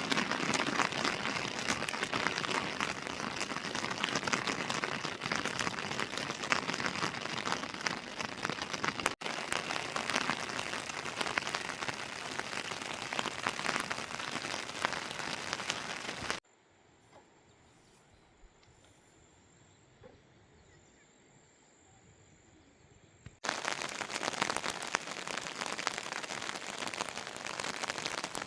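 Heavy rain falling steadily with a dense patter. It cuts out abruptly past the middle into a much quieter stretch for about seven seconds, then the rain comes back just as suddenly.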